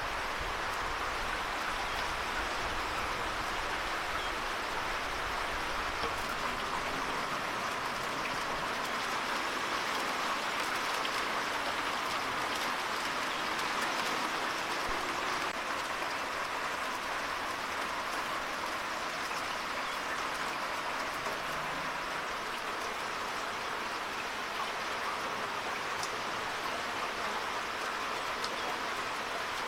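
Steady rushing noise like running water, unchanging throughout.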